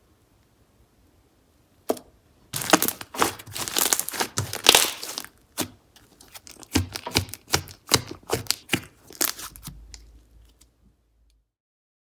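Slime being squished and stretched by hand, giving a dense run of crackling and popping for a few seconds, then shorter separate crackles that die away near the end.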